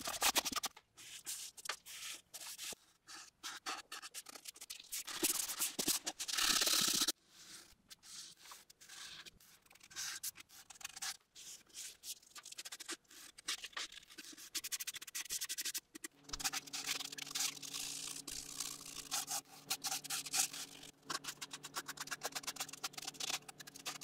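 Cloth rag and then a foam brush rubbing dark walnut stain onto plywood, in irregular scrubbing strokes. A steady low hum comes in about two-thirds of the way through.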